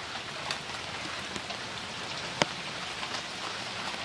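Heavy tropical-storm rain falling steadily as an even hiss, with a few sharp ticks, the loudest about two and a half seconds in.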